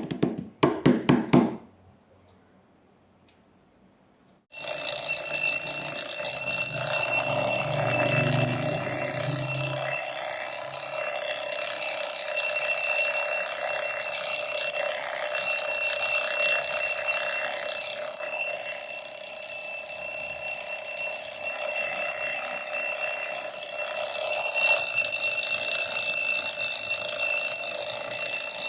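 Alarm clock ringing continuously, a loud unbroken ring with steady high tones, starting about four and a half seconds in. It is preceded by a few short sharp strokes and a brief silence.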